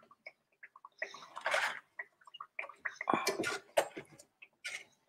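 Hot sunflower oil crackling and sputtering in a frying pan as battered zucchini flowers are lifted out with tongs. The sputters come irregularly, loudest about a second and a half in and again around three to four seconds in, with a few sharp clicks.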